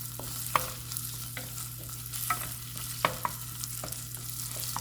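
Beef, gizzard and shaki (tripe) sizzling in oil in a pot while being stirred, with a sharp click of the utensil against the pot every half second or so. A steady low hum runs underneath.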